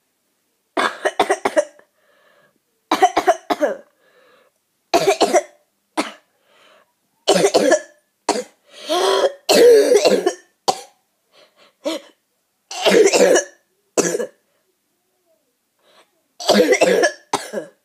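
A boy coughing with a bad cough: repeated fits of coughing, about a dozen short bursts in clusters with brief pauses between them.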